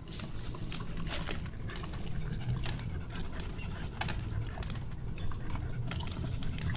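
A horse chewing feed and hay: irregular crisp crunching clicks over a steady low rumble.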